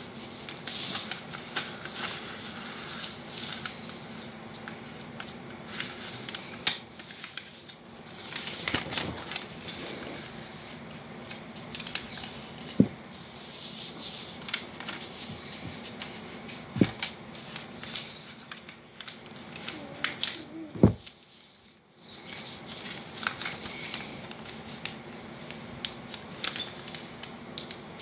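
A sheet of printer paper being folded and creased by hand on a hard floor: irregular rustling, rubbing and crinkling, with three louder knocks spread through.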